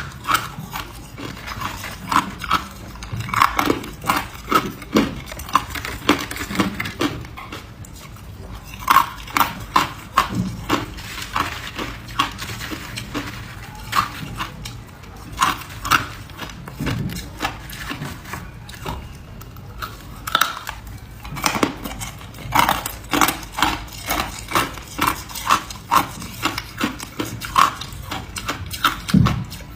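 Ice being bitten and chewed: irregular sharp crunches and cracks, often several a second, in runs with short pauses.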